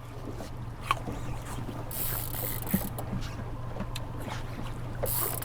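Steady low hum of a boat's motor, with a few light knocks and short bursts of hiss over it.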